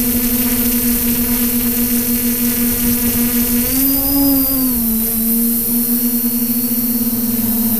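Electric motors and propellers of the Xugong multirotor drone, heard close up from its onboard camera: a loud, steady buzzing hum with a fast pulsing. About four seconds in the pitch rises briefly and then settles back as the motors speed up.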